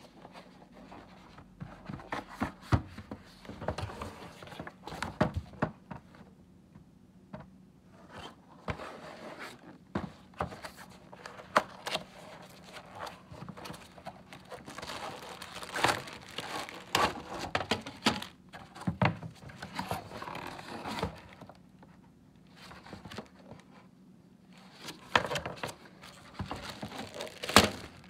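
Cardboard box being handled and opened: irregular scrapes, taps and rustles of cardboard, with tape pulled from a flap. Near the end, plastic wrapping crinkles as the stand is drawn out of the box.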